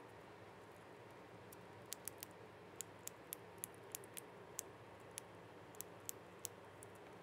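Plastic CNC cable-chain links clicking as they are handled and snapped shut over a cable: a string of irregular sharp clicks starting about two seconds in, over faint room hum.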